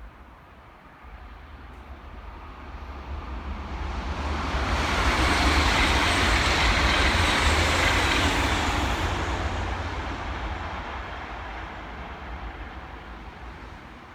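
A train passing by: its rushing noise builds over about four seconds, is loudest for a few seconds in the middle, then fades away.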